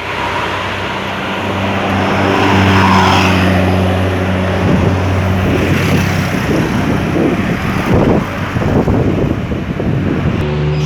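Large diesel bus engine running on the road, a steady low drone that turns uneven about halfway through and settles to a new steady pitch near the end.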